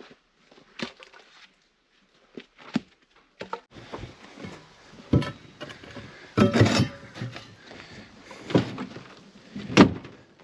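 Irregular knocks and thuds of wood being handled, about eight in all, with a longer scraping clatter a little past the middle and the loudest knock near the end.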